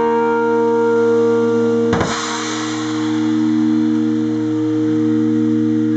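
Live band holding a sustained chord of electric guitar notes over a steady low note, all ringing on unchanged, with a single cymbal crash about two seconds in.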